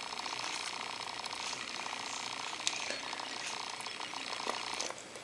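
Steady, fine crackling hiss like fizzing or bubbling, with a few light clicks.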